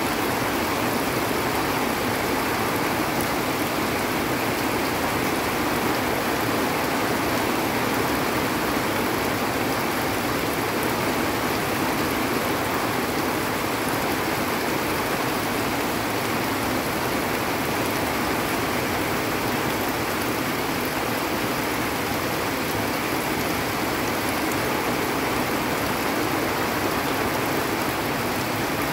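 Steady rain falling, with muddy runoff water rushing down a hillside channel, an even hiss that does not let up.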